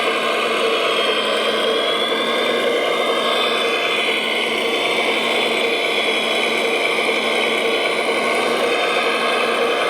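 Electric motors and gear drives of radio-controlled model construction machines whirring steadily, with a high whine that drifts a little in pitch.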